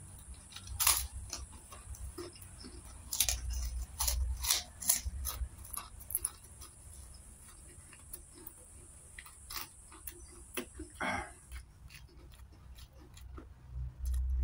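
Close-up eating sounds from a person chewing a mouthful of rice and sardine: irregular wet mouth clicks and lip smacks, with a short breathy noise about eleven seconds in. A faint high hiss runs underneath and stops about twelve seconds in.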